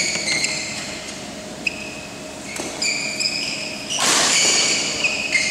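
Sneakers squeaking on badminton court flooring in short high-pitched chirps, with a sharp racket hit on a shuttlecock about one and a half seconds in and a louder rush of scuffling noise about four seconds in.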